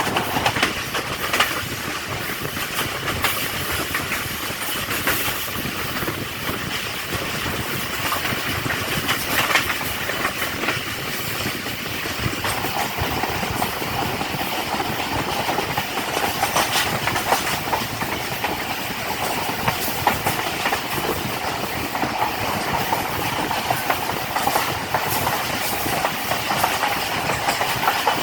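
Passenger train running on the rails, heard from aboard: a steady rumble with the clickety-clack of wheels over rail joints. A mid-pitched part of the noise grows louder about twelve seconds in.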